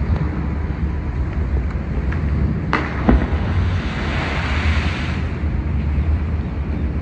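Steady low rumble of highway traffic and wind on the microphone. Two sharp knocks come just under three seconds in, then a rushing hiss swells and fades over about two seconds.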